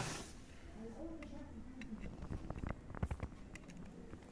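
Faint small metal clicks and scrapes of pliers and a screwdriver working a terminal screw and nut on a blower heater's heating coil, as the nut is tightened. The clicks come scattered, most of them in the middle.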